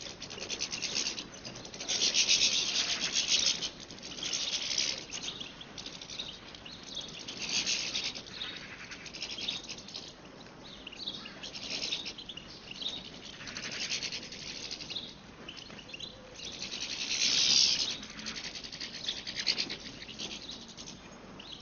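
European goldfinch song: short phrases of high, rapid trilling and twittering every few seconds, the loudest about two and about seventeen seconds in.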